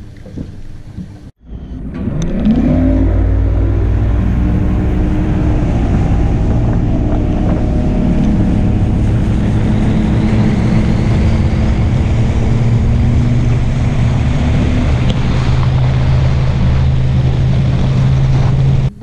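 A bass boat's outboard motor picks up speed, its pitch rising, then runs steadily at high speed across open water, with hull and wind noise. A second of wind on the microphone comes before it.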